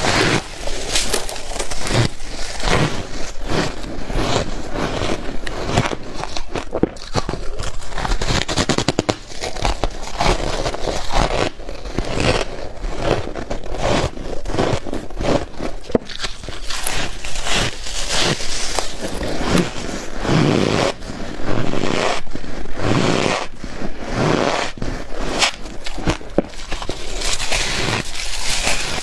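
Close-up crunching of powdery white freezer-frost ice being bitten and chewed, a continuous run of crisp crackly crunches.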